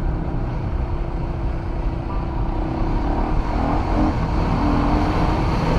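ATV (quad bike) engine running as it rides along a bumpy dirt track, heard from on board over heavy low rumble; the engine note wavers up and down in the second half as the throttle changes.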